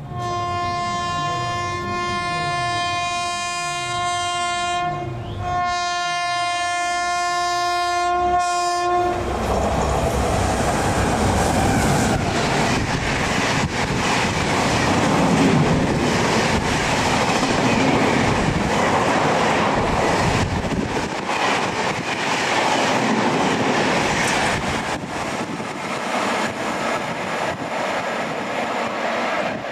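WAP-5 electric locomotive sounding its horn in two long blasts, the second starting about five and a half seconds in, then the passenger train rushing past at high speed with a steady clickety-clack of wheels over rail joints.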